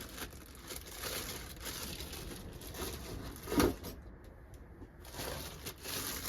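Packaging being handled and unwrapped as welder accessories are taken out of the box, with a short knock about three and a half seconds in.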